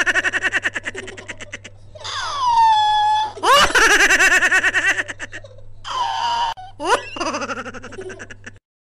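High-pitched, squeaky laughter and giggling in rapid pulsing bursts whose pitch swoops up and down, like a sped-up cartoon laugh sound effect, over a low steady hum. It cuts off abruptly near the end.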